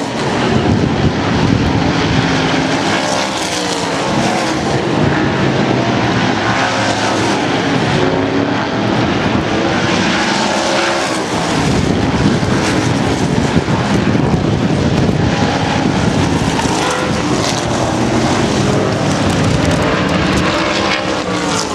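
Several oval-track race car engines running at speed, passing one after another, their pitch rising and falling as they go by.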